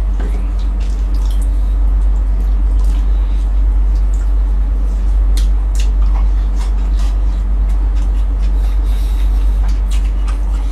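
A person eating close to the microphone: chewing and wet mouth sounds with scattered small clicks and crunches, over a steady loud low hum.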